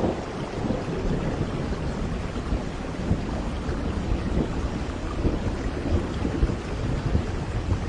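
Steady rain falling, with a continuous low rumble of thunder underneath.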